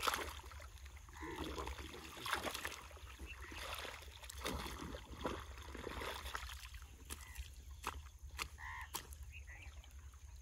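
Irrigation water sloshing and trickling along flooded furrows, with irregular splashes and scrapes of a long-handled hoe and bare feet in the wet mud, loudest at the very start.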